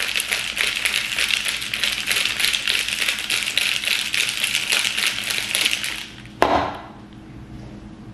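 Ice rattling rapidly inside a stainless-steel cocktail shaker being shaken hard. The shaking stops about six seconds in, followed by one loud knock as the shaker is set down on the counter.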